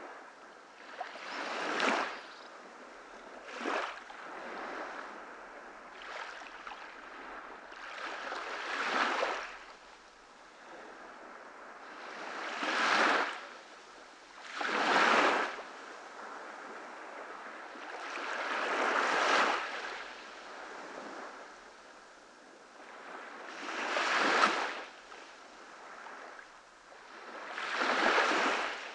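Ocean waves breaking on a beach: a steady wash of surf that swells into a louder break every few seconds, about eight times.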